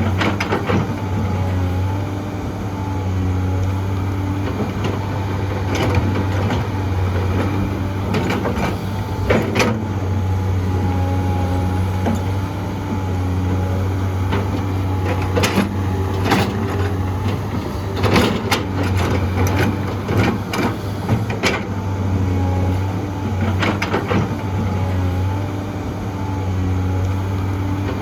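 Heavy excavator's diesel engine running steadily, with scattered knocks and clatters of the bucket digging and dumping dirt and rock, busiest about two-thirds of the way through.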